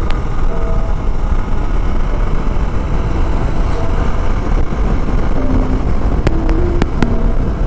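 Hero Xpulse single-cylinder motorcycle engine running on the move, under heavy, steady wind rumble on the rider's microphone, with a few sharp clicks a little past six seconds in.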